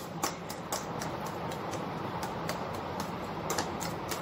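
A metal spoon beating eggs in a stainless steel bowl: quick, uneven clinks of spoon against steel, about two or three a second.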